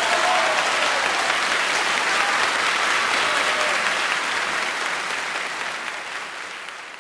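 An audience applauding after a live guitar piece. The clapping holds steady, then fades out over the last few seconds.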